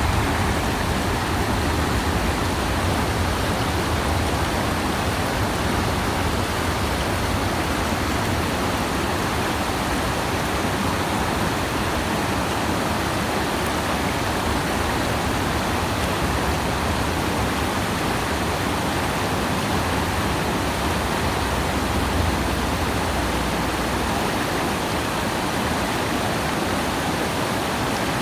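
River water flowing in a steady, even rush with a low rumble underneath.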